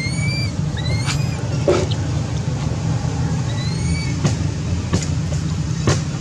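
Baby long-tailed macaque giving short, high-pitched distress cries, twice (about a second in and again about three and a half seconds in). A steady low hum runs underneath, with a few sharp clicks.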